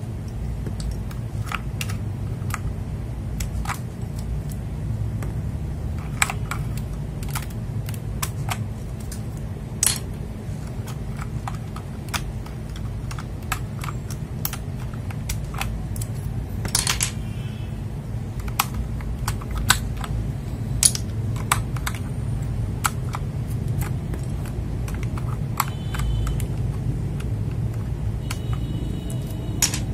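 Keycaps being pulled off a mechanical keyboard one after another: scattered, irregular plastic clicks, about one or two a second, over a steady low hum.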